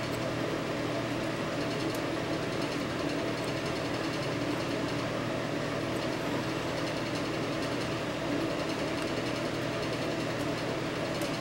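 Steady hum of a running motor, with a few faint ticks.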